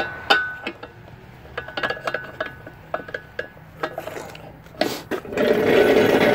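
Steel lifting chain clinking and rattling against a cast-iron Model T engine block: a run of light metallic clinks, some with a brief ringing tone. About five seconds in, a louder steady noise sets in.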